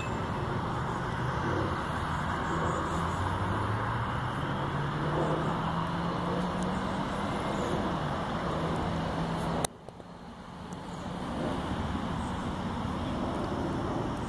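Steady background traffic noise with a motor vehicle's engine hum that rises slowly in pitch. About ten seconds in there is a sharp click, the noise drops away suddenly, then fades back up.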